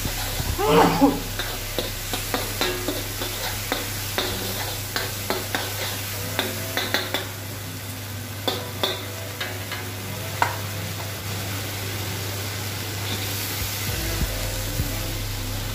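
Onions and green capsicum sizzling in hot oil in a wok while a metal ladle scrapes and clinks against the pan as they are stir-fried. The scraping stops after about 11 seconds, leaving a steady sizzle over a low hum.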